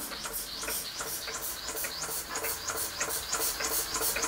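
Court Lodge MK1 model steam engine running slowly under steam, giving an even, rhythmic hiss of steam about five times a second over a faint steady tone. It is leaking a little steam where the cylinder mounts to the engine frame.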